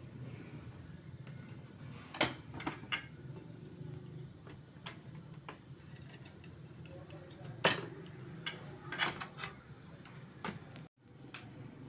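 Scattered light clicks and knocks, about ten in all and irregularly spaced, over a steady low hum: tools and parts being handled during a repair. The sound cuts out briefly near the end.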